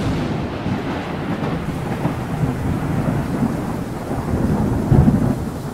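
Thunderstorm sound: steady rain with rolling thunder. It comes in suddenly, and the thunder swells louder about five seconds in.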